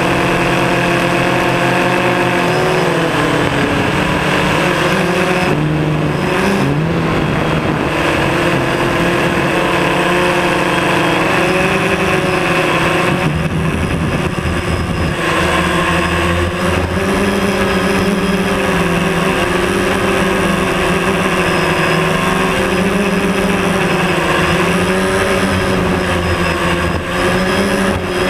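DJI Phantom quadcopter's electric motors and propellers whining in flight, heard close up from the camera mounted on the drone. The pitch of the whine shifts and wavers as the motor speeds change, dipping about six seconds in and rising and falling steadily toward the end.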